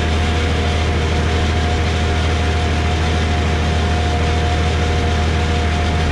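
Brassus H14 feed mixer wagon running while it unloads feed through its side discharge conveyor belt: a steady low machine drone with a constant whine above it.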